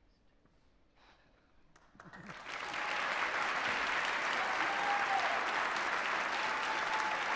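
Near silence for about two seconds, then an audience starts applauding, swelling within a second to steady, sustained clapping.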